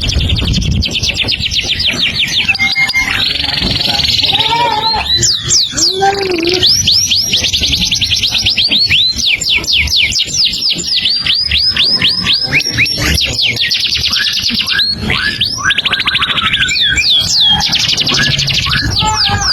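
A songbird singing loudly and without pause: long fast runs of high, falling whistled notes, about ten a second, broken by varied chattering phrases.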